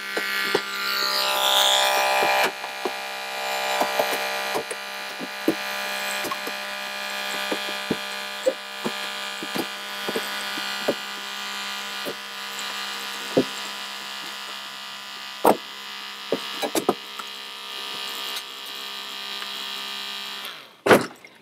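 Holmatro rescue spreader running as it pushes a car's dash up, a steady hum from its drive with sharp cracks and creaks of the car's metal and plastic giving way. The hum stops shortly before the end, followed by a single knock.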